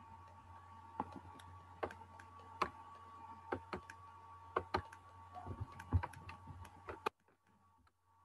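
Faint, irregular clicking and tapping at a computer, a dozen or so sharp clicks over a steady electrical hum. The sound cuts off abruptly about seven seconds in.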